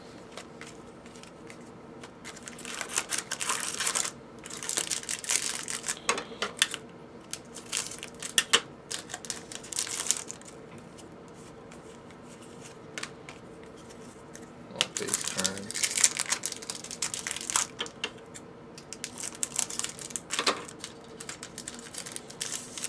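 Foil hockey-card pack wrappers crinkling and tearing open, with cards sliding against each other as they are handled, in several bursts of rustling with short pauses between.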